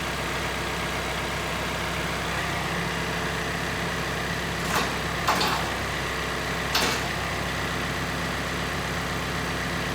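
Sawmill engine idling steadily, with three short sharp knocks about five, five and a half and seven seconds in.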